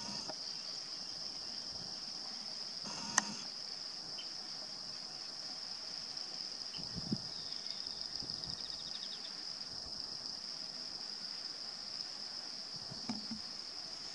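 Steady, high-pitched chirring of insects in the grass, with one sharp click about three seconds in.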